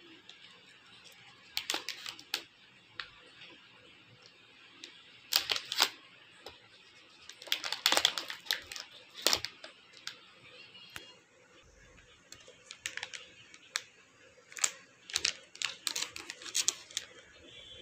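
Crinkling and crackling of a plastic ice cream bar wrapper being handled, in scattered clusters of sharp crackles, the loudest about a third of the way in and around the middle.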